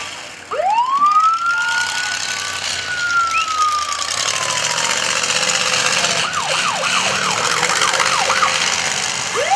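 Siren on a fire-rescue-styled demolition derby car. It rises sharply into a long wail that slowly falls, switches to a short run of fast yelps, then starts another rising wail near the end, over steady background noise.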